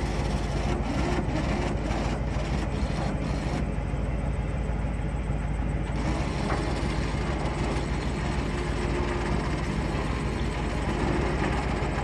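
Old Ford pickup's engine idling steadily, with a few short clicks and rattles in the first three or four seconds.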